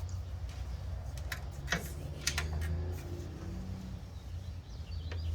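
A few scattered light clicks and taps from a ratchet and socket being worked on a stubborn bumper bolt, over a low steady hum.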